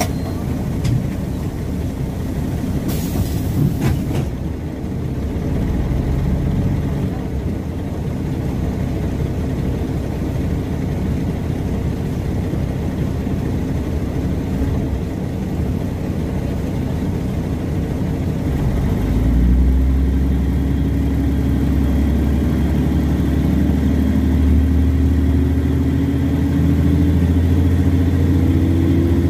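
Mercedes-Benz O305 city bus heard from inside the cabin while under way: the diesel engine runs steadily, with a short burst of hiss about three seconds in. About two-thirds of the way through, the engine pulls harder and gets louder, its note rising slowly as the bus picks up speed.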